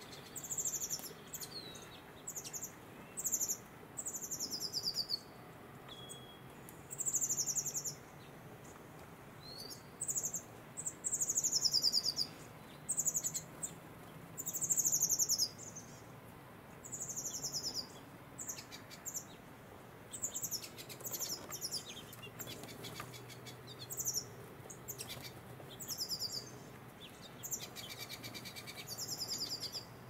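Small songbirds chirping: many short, high-pitched notes, a lot of them sweeping down in pitch, come in quick phrases one after another.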